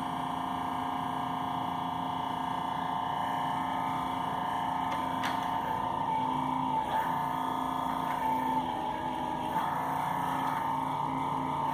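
Power supply whining and humming steadily: several fixed electrical tones, the strongest a high whine, wavering slightly, with a few faint clicks about halfway through.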